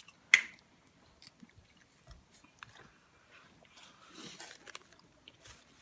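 Close-up chewing and biting into a breakfast burrito in a soft flour tortilla, with a sharp loud click about a third of a second in, then quieter, scattered mouth and chewing noises.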